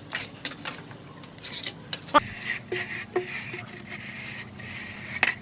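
Hand plastering tools on wet cement render over brick: scraping and rubbing, with scattered taps and a sharp metallic clink about two seconds in.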